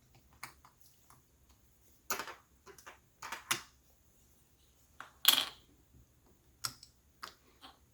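Scattered small clicks and light taps of a screwdriver and small hard parts being handled while a laptop's speakers are unscrewed and lifted out, about a dozen irregular knocks with the loudest a little past the middle.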